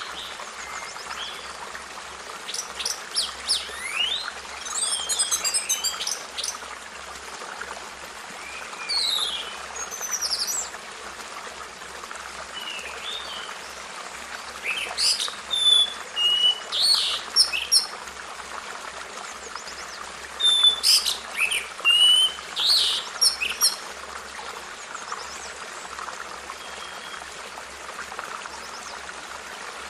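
Birds singing and calling: a mix of short chirps, whistled notes and trills from more than one bird, loudest in two busy spells around the middle, over a steady background hiss.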